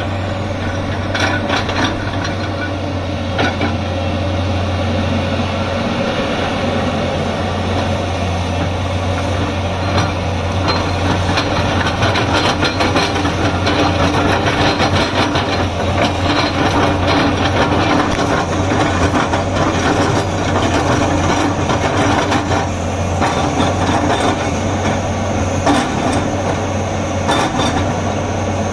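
Tata Hitachi excavator's diesel engine running steadily, with scattered knocks and clanks over it.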